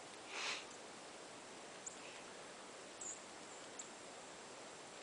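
Faint steady outdoor hiss with a short breathy rustle about half a second in and a few faint clicks.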